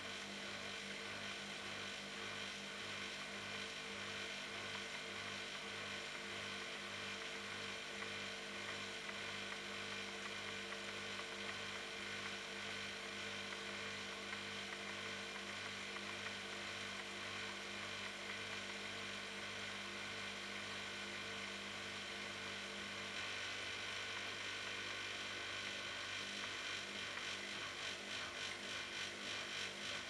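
Bosch Logixx WAS32461GB front-loading washing machine running, its drum turning slowly with wet pillows and water still inside, and a steady low mechanical hum. The hum changes about three quarters of the way through, and near the end the sound starts pulsing about twice a second.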